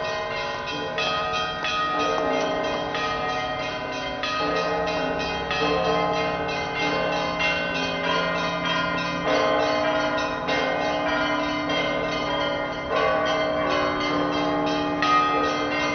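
Church bells of the Alexander Nevsky Cathedral, a Bulgarian Orthodox cathedral, pealing continuously. Several bells are struck in quick succession, several strikes a second, with their tones ringing on over one another.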